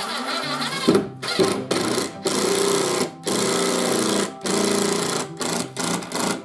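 Makita cordless impact driver driving a coarse-thread wood screw through a wooden climbing volume into the plywood wall, running in a string of bursts: several long runs, then short stop-start pulses near the end.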